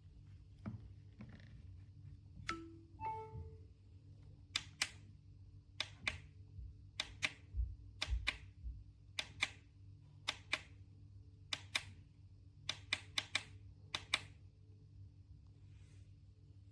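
A button being pressed and released over and over: sharp clicks, mostly in close pairs about a second apart, with one group of three. About two and a half seconds in, a short run of electronic beeps at stepping pitches comes first.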